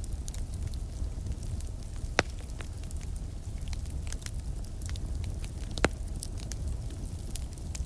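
Campfire crackling: a steady run of small crackles with two louder pops, about two seconds in and near six seconds, over a steady low rumble.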